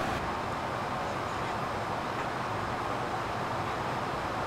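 Steady ambient noise inside a parked CSeries airliner cabin, an even rushing hum with no distinct events; the hiss thins slightly a moment in.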